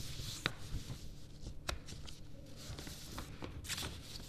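Faint rustling and a few light clicks, like a seated person shifting or handling something, over a low room hum.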